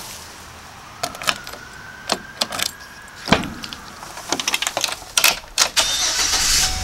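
Someone getting into a van: keys jangling, a series of clicks and knocks, and a door shutting about three seconds in. Near the end the engine cranks and starts.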